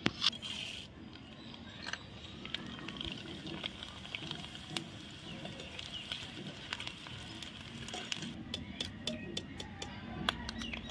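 Sago pearls frying in hot oil in a metal kadai, a steady sizzle as they puff up. A perforated metal skimmer stirs them, with a run of sharp clicks near the end as it knocks against the pan while lifting them out.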